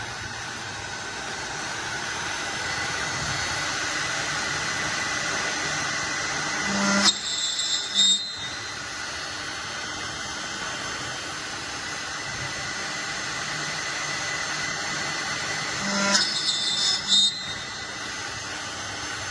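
CNC lock-milling machine for aluminium profiles running with a steady whine. Twice, about seven and sixteen seconds in, there is a loud, high-pitched burst lasting about a second.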